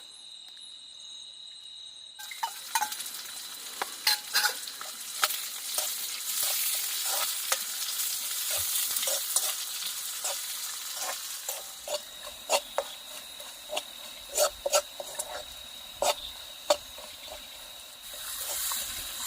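Food sizzling in a pan as it is stirred, with the spoon clicking and scraping against the pot many times; the sizzle starts about two seconds in. A steady high insect trill runs underneath.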